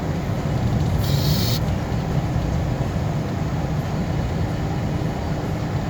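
A vehicle running, heard from inside the cab as a steady low rumble, with a brief hiss about a second in.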